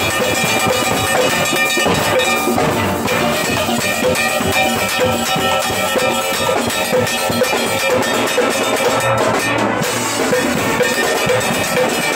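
Steel band playing live at close range: many steelpans ringing together in a dense, steady rhythm, over drums and percussion.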